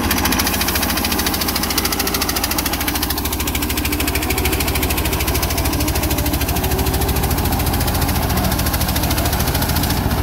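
Single-cylinder diesel engine of a công nông farm truck running with a steady, rapid chugging beat while it pulls a trailer loaded with cassava through deep ruts.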